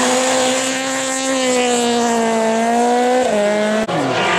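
Rally car engine held at high revs, one steady note that creeps up slightly for about three seconds, then the revs fall near the end. The sound cuts off abruptly just before the end, and a lower engine note follows.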